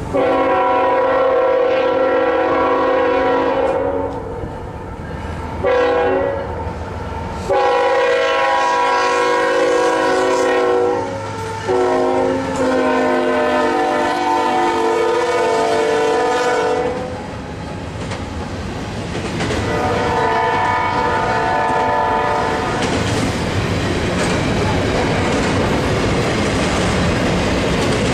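Diesel locomotive air horn blowing several long blasts, with one short blast among them. After the horn, a passing double-stack intermodal train gives a steady rumble and clickety-clack of wheels on rail joints.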